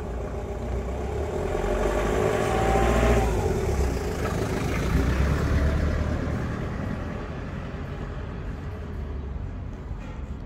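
Street traffic: a motor vehicle passing, its engine growing louder to a peak a few seconds in, swelling again briefly, then fading to a steady background hum.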